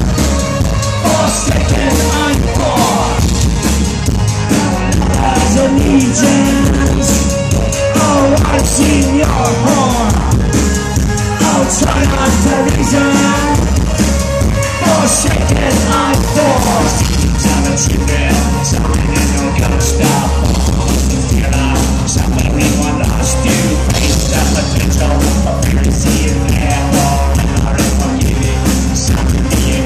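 Industrial band playing live: loud electronic rock music with strong bass and a steady beat, a singer's voice running through it.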